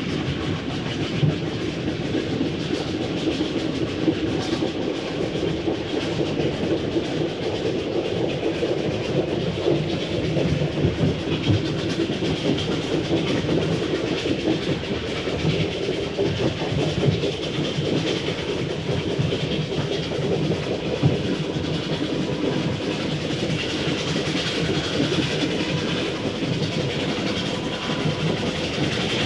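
Steam train running steadily, its wheels clattering over the rail joints with a dense, continuous rumble.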